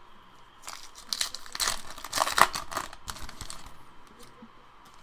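A foil trading-card pack wrapper being torn open and crinkled, crackling most densely between about one and three seconds in, then quieter handling.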